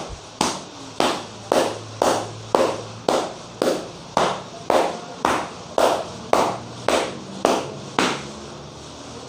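Hand slaps on a person's head during a barber's percussive head massage: about fifteen sharp, evenly spaced strikes at roughly two a second, stopping about eight seconds in.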